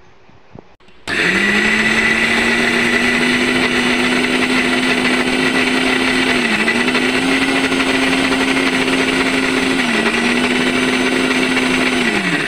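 Bajaj electric mixer grinder's motor starting about a second in, spinning up and running steadily as its blades grind lentils into a paste. Its pitch dips briefly twice, then it winds down and stops just before the end.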